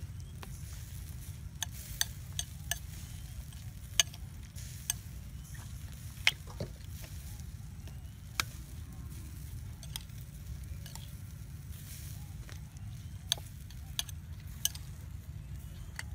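A metal spoon stirring a shredded salad mixture in a ceramic bowl, with irregular sharp clinks as the spoon strikes the bowl, over a steady low rumble.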